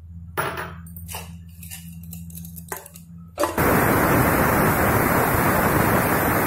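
A few light clinks, then about three and a half seconds in a pressure cooker's weight valve starts venting steam in a sudden, loud, steady hiss. This is the cooker's whistle: it has come up to pressure.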